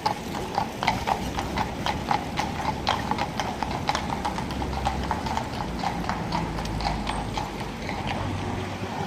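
Fiaker carriage horse's hooves clip-clopping at an even walk, about three strikes a second, with a low rumble underneath from about halfway.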